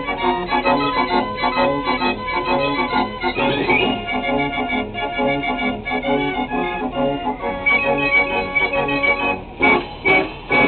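Marenghi fair organ playing a tune with a steady rhythm. There is a rising glide a little over three seconds in, and a brief break with a couple of sharp hits near the end.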